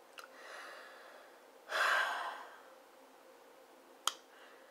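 A woman's breathy reaction to a bad-tasting chip: a soft breath, then a loud sharp exhale about two seconds in, and a short click near the end.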